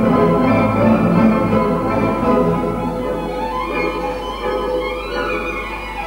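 Orchestral music with a string melody, full and sustained, with runs of notes rising and then falling a few seconds in.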